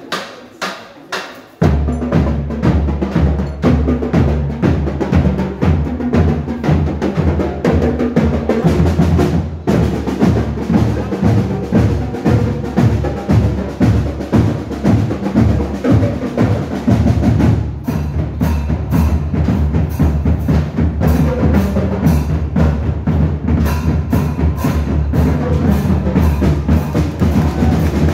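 Marching band of drums and bell lyres: a few sharp clicks, then about two seconds in the full band starts playing loudly, with a steady beat of bass drum and snare under pitched notes.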